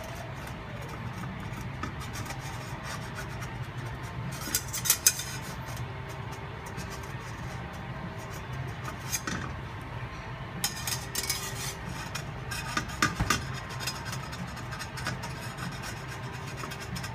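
Slotted metal spatula scraping and clicking against an iron frying pan as it is slid under a cooking pancake: several short scrapes, the loudest about five seconds in and again about thirteen seconds in, over a steady low hum.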